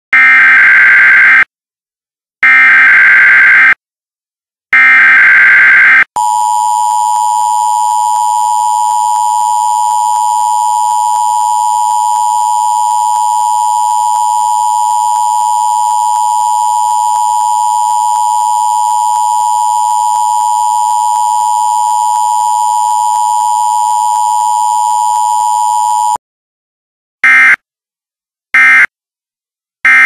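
Emergency Alert System test tones: three loud bursts of SAME digital header data screech, then about twenty seconds of the steady two-tone EAS attention signal (853 and 960 Hz), then three short end-of-message data bursts.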